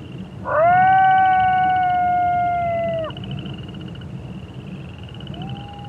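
A coyote howls: one long held note that swoops up at the start, holds for about two and a half seconds and drops off at the end, followed by a second, fainter howl starting near the end. Frogs and toads trill steadily behind it.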